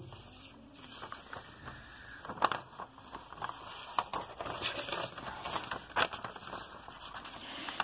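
Sheets of paper rustling and crinkling as handwritten note pages are turned over and shifted, with a few sharper crinkles along the way.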